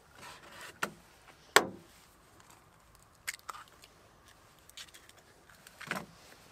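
An egg cracked against the rim of a plastic mixing bowl: one sharp crack about a second and a half in, with a few quieter clicks and taps before and after.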